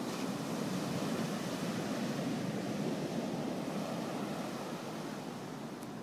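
Ocean surf breaking and washing up the beach: a steady rushing, a little louder in the first half and easing off toward the end.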